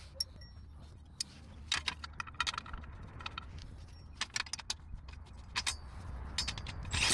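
Irregular metallic clicks and clinks of hand tools and exhaust bolts being handled while the exhaust pipe is bolted back on, some in quick clusters and a louder one near the end, over a steady low hum.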